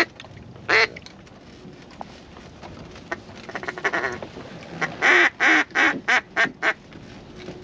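Duck call blown close by to ducks coming in over the decoys: a loud single quack, a softer quick chatter, then a loud series of about six quacks that get shorter toward the end.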